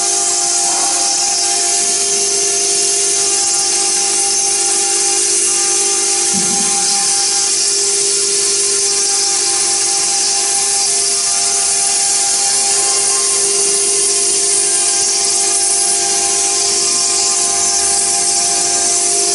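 CNC stone router's spindle running steadily as it cuts and engraves marble: a constant whine over a strong high-pitched hiss from the bit grinding the stone.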